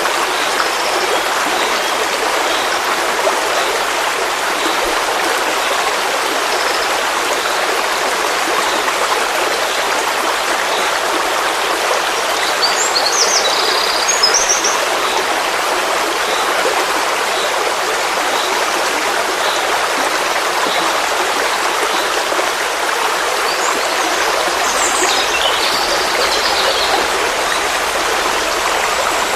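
Forest stream flowing with a steady rush of water. A bird chirps in two short bouts, about halfway through and again near the end.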